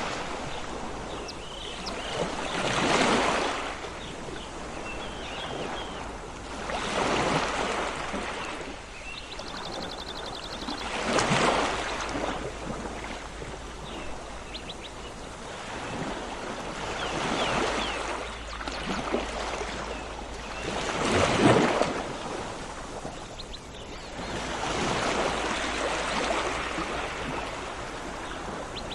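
Sea waves washing onto a shore, the surf swelling and falling back every few seconds, the biggest surge about two-thirds of the way through. Short bird chirps are heard faintly between the waves.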